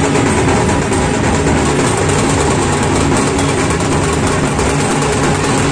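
Loud, steady din of a packed festival crowd, with a continuous low rumble underneath.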